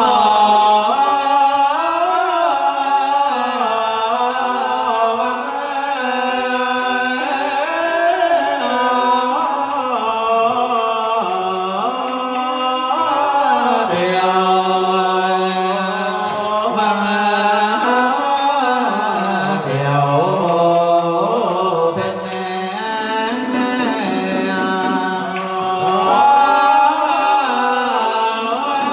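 Buddhist monk singing a Hue-style ritual chant (tán) in long, sliding, melismatic notes, over ceremonial ritual music.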